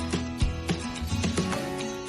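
Upbeat background music with plucked guitar over a steady beat.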